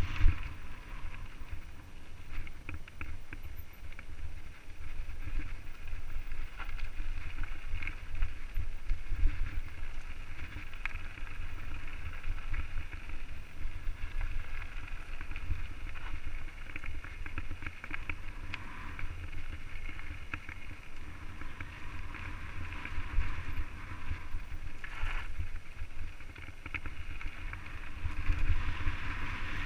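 Mountain bike descending a rough dirt singletrack, heard from a helmet camera. Wind rumbles on the microphone under a steady hiss, with a constant patter of small clicks and rattles from the tyres and bike over the trail. There are a few louder knocks from bumps, one just after the start and one about nine seconds in.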